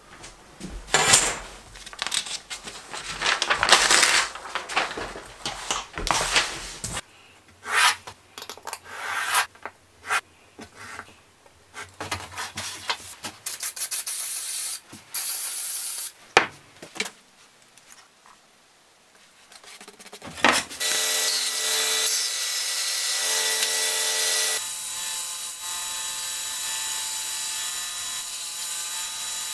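Wood sheet material being scraped and rubbed on a workbench, with scattered knocks. Then a thump, and a bandsaw runs steadily, cutting a thin MDF template.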